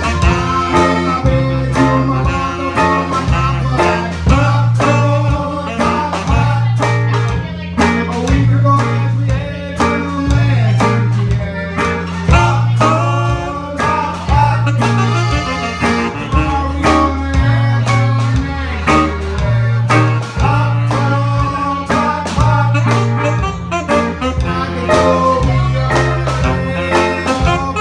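Live band playing an upbeat song: electric guitar over a repeating bass line and drums with a steady beat, with accordion and saxophone.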